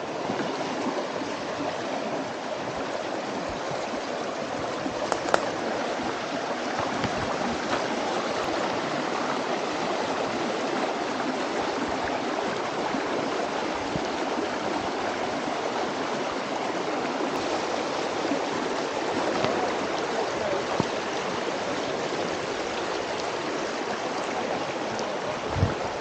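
Shallow stream running over rocks: a steady rushing and babbling of water, with a couple of brief clicks, one about five seconds in and one near the end.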